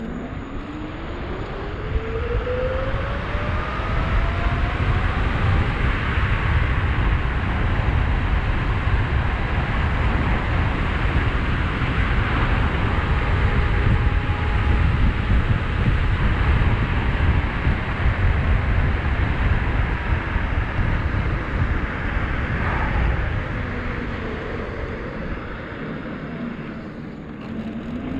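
72-volt, 5000-watt e-bike conversion motor whining, rising in pitch as the bike speeds up over the first few seconds. At speed, wind rushing over the microphone mostly covers it; near the end the whine falls as the bike slows, then rises again as it pulls away.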